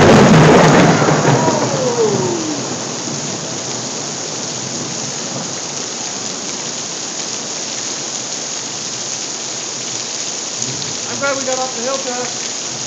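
Three-eighths-inch hail and rain falling steadily, a dense patter on grass and pavement. Right at the start a loud clap of thunder breaks in and rumbles away over about two seconds.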